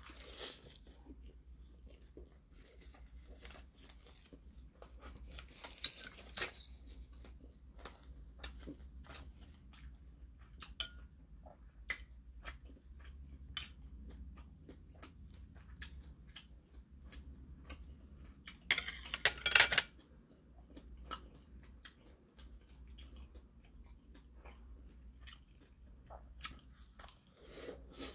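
Close-up chewing and mouth sounds of a man eating tofu stew wrapped in seasoned laver, with scattered sharp clicks of chopsticks and dishes. A louder, brief burst of noise comes about nineteen seconds in.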